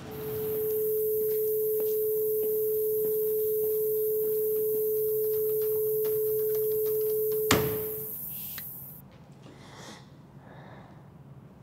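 A steady pure tone, like a sine-wave test tone, with a fainter high-pitched whine above it. It holds for about seven seconds, then a sharp click sounds, the tone fades out within a second, and the whine stops shortly after.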